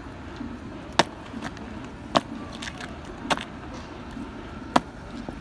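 Boot heels striking asphalt in slow drill steps: four sharp clacks about a second apart, with fainter steps between them.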